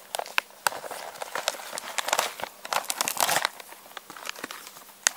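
Crinkling and rustling of a foil freeze-dried meal pouch being handled, an irregular run of crackly clicks with a sharp click near the end.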